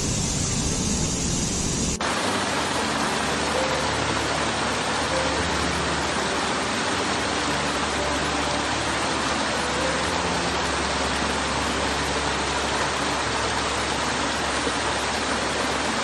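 Water of a small forest stream cascading over boulders and low rock ledges: a steady, even rush. About two seconds in it changes abruptly to a different stretch of falling water, with less deep rumble and less high hiss.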